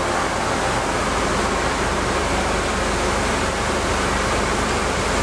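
Steady, loud, even din of a crankshaft machine shop: machinery and ventilation running together, with no single event standing out.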